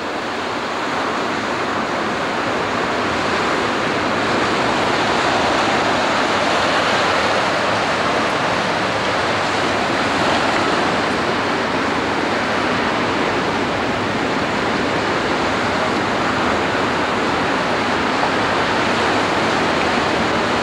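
Gulf surf breaking and washing up the beach: a steady rush of waves that builds slightly over the first few seconds and then holds even.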